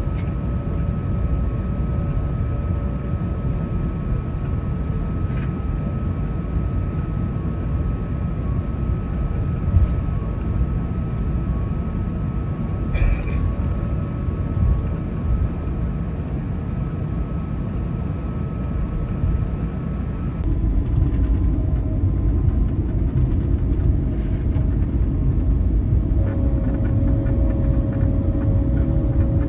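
Airbus A321neo cabin noise while the jet moves on the ground: a steady low rumble with faint steady hum tones and a few light clicks and knocks. About twenty seconds in, the rumble steps up louder and deeper and the hum changes pitch.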